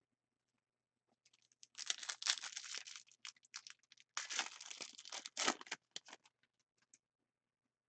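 A plastic trading-card pack wrapper being torn open and crinkled, in two rustling stretches with scattered crackles after.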